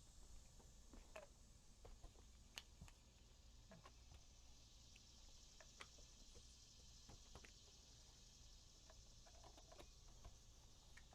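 Near silence: faint room tone with a dozen or so light, scattered clicks.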